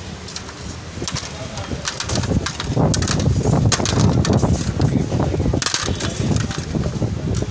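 Ambience at a charcoal kebab grill: scattered clicks and clinks of metal skewers being handled, over a low rumble of voices and street noise that grows louder about two seconds in.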